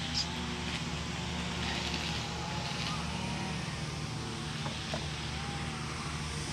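Outdoor ambience: a steady low hum, like distant traffic or an engine running. A faint wavering tone comes and goes above it, with a couple of light clicks.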